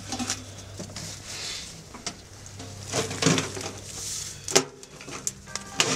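Titanium camp stove being assembled: metal stovepipe scraping and knocking as it is slid into the flue collar on the stove top, with several sharp metal clinks, the loudest about four and a half seconds in.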